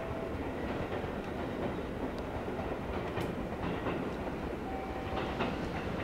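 Seibu 20000 series electric train pulling away, its wheels rolling and clicking over rail joints and points, with a sharp click about three seconds in. A short steady whine comes in near the end.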